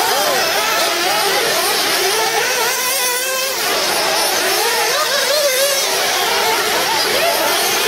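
Several 1/8-scale 4x4 RC buggies racing at once, their small nitro glow engines running high-pitched, each note rising and falling as the cars accelerate and brake around the track.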